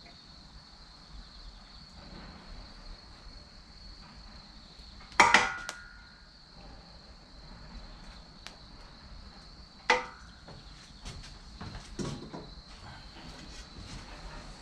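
A wood fire of chestnut and cherry logs, with sharp cracks and knocks from the burning wood: a loud cluster about five seconds in, another near ten seconds, and a few smaller ones after. A steady high insect trill runs underneath.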